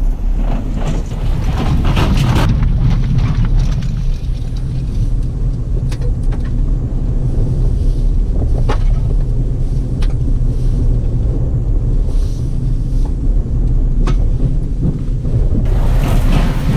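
Chevy Colorado ZR2 pickup driving slowly over an off-road obstacle course: a steady low rumble, with wind on the microphone and a few brief knocks.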